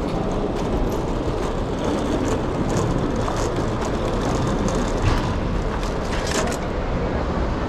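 Metal airport luggage trolley pushed over paving: the wheels rolling with a steady rumble, the wire frame rattling with many small clicks.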